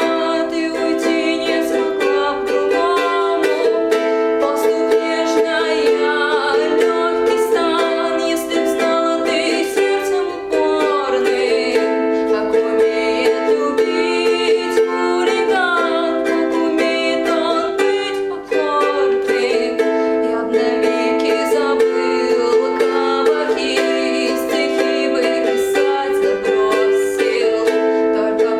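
A woman singing a slow, lyrical song solo in Russian over sustained instrumental chord accompaniment.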